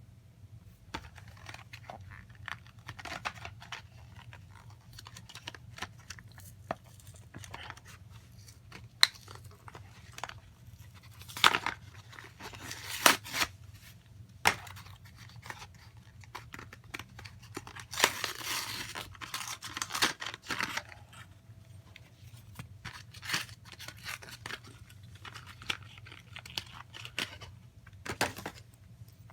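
Toy packaging being torn open and handled, with bursts of tearing and crinkling, the heaviest about a third and two-thirds of the way through, and scattered sharp clicks of plastic. A steady low hum runs underneath.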